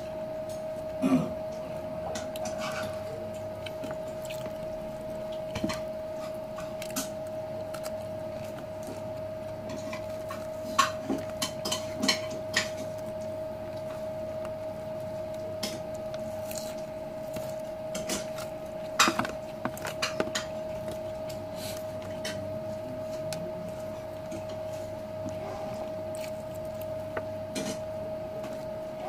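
Scattered clicks and light clinks of a plate being handled while eating by hand, with small clusters around the middle and about two-thirds through, over a steady unchanging hum.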